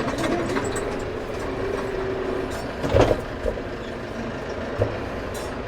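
Tractor engine running steadily as its loader works a log off a trailer, with a steady whine for about two seconds and a clunk about three seconds in.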